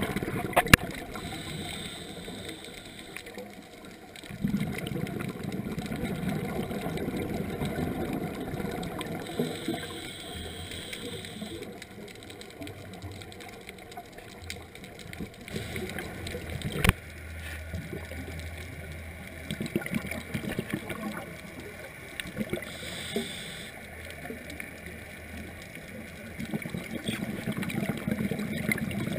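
Underwater scuba breathing through a regulator, picked up through the camera housing: a short hiss three times and long stretches of bubbling, gurgling rumble, with a couple of sharp clicks.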